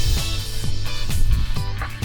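Background music track with a steady beat, bass and plucked or strummed instruments.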